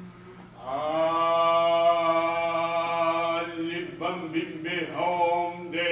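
A performer's voice chanting: one long held note, then shorter chanted phrases.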